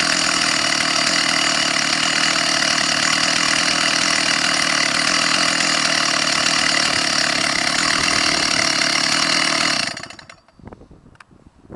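Stihl 064 two-stroke chainsaw idling steadily, then switched off about ten seconds in; a few faint clicks follow.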